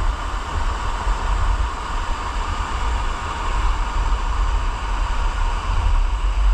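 Steady rushing of a waterfall, a continuous noise with a deep low rumble.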